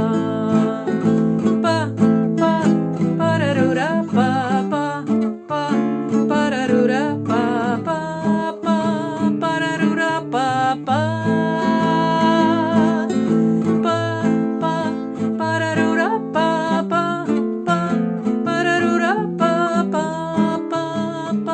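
Instrumental break of a song: strummed acoustic guitar under a melody line with vibrato.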